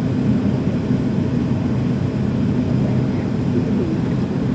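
Steady low drone inside an MD-80 airliner's cabin: an even rumble with a couple of steady low tones.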